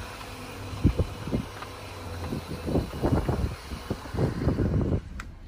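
Jeep crawling slowly over sandstone slickrock: a low engine and drivetrain rumble with irregular thumps and jolts as the tyres climb the rock, and wind buffeting the microphone. The wind hiss drops away abruptly near the end.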